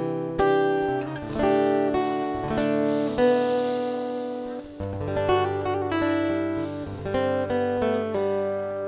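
Acoustic guitar music with no singing: chords and single plucked notes ringing on in an instrumental passage of a slow ballad.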